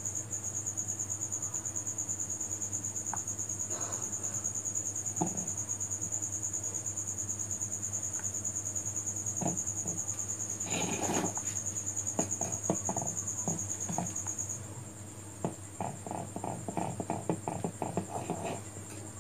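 Crickets chirping in a steady, high, rapidly pulsing trill, with a spoon stirring thick cake batter, scraping and clicking against the bowl in the second half.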